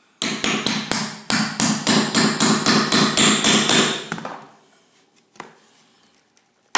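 Hand grout saw scraping rapidly back and forth in a grout line between ceramic floor tiles, about four to five strokes a second, cutting a groove in the grout. The strokes stop after about four seconds, and a single sharp knock comes near the end.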